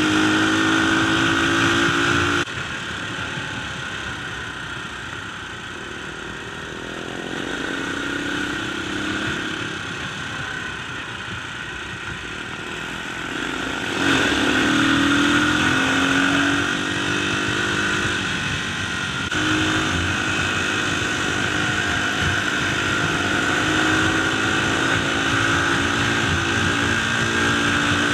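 Dirt bike engine running on the road, its pitch rising and falling as the rider works the throttle and shifts gears. The level drops suddenly about two seconds in and jumps back up twice later on.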